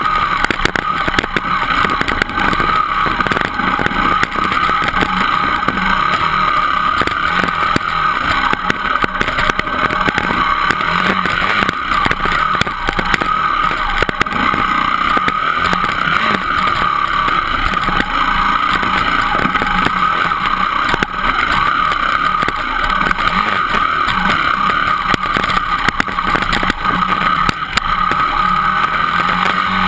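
Dirt bike engine running steadily and loud while riding a rough forest trail, picked up by a camera mounted on the bike, with many small knocks and rattles from the bumpy ground.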